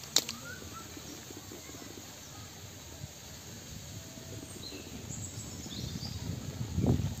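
Outdoor ambience: a steady background hiss with a few faint, short bird chirps, a single sharp click just after the start, and low rustling near the end.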